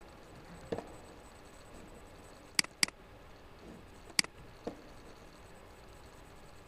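Computer mouse clicks: a quick pair of sharp clicks, then a single click about a second and a half later, with a couple of duller, softer knocks, over a faint steady background hiss.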